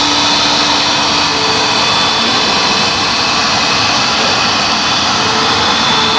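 Electric heat gun running steadily, its fan blowing a constant rush of hot air onto a headlight housing to soften the sealer.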